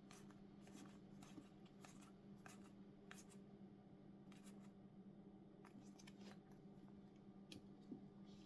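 Near silence with faint scattered ticks and rustles of trading cards being slid and flipped in the hand, over a steady low hum.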